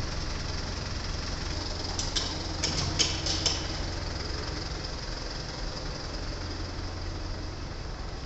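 Mitsubishi Fuso Canter Guts double-cab truck's engine running steadily as the truck pulls slowly away. Several sharp clicks come in quick succession about two to three and a half seconds in.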